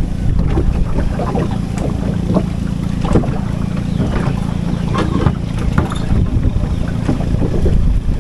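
Wind buffeting the microphone as a steady low rumble, over repeated short rustles and splashes of water hyacinth being handled at the water's edge from a small boat.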